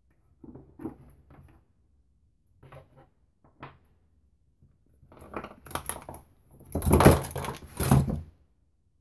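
Handling noises on a wooden workbench: scattered light knocks and taps, then a louder stretch of scraping and rustling from about five seconds in, loudest a couple of seconds later.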